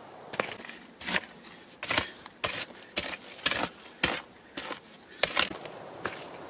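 Small pick-mattock digging into clay soil: repeated strikes that chop and scrape into the earth, about two a second.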